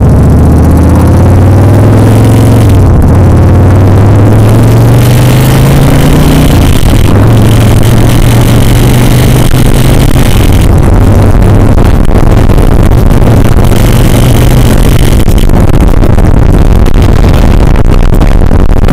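Big Dog motorcycle's S&S V-twin engine pulling under load, rising in pitch over the first several seconds and then holding steady, with heavy wind buffeting on the microphone. Under throttle it carries a vibrating sound that the owner finds super annoying and can't account for.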